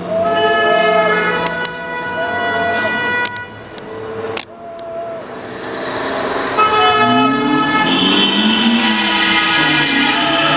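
Street celebration honking: many car horns blowing long, overlapping blasts, mixed with vuvuzelas and people shouting, growing denser about two-thirds of the way through.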